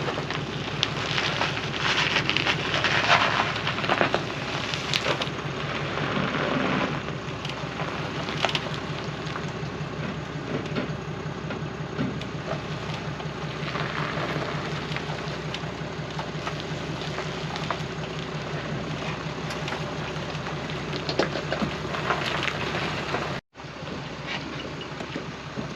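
An engine running steadily with an even low pulse, under a loud rushing hiss of water, louder in surges over the first few seconds.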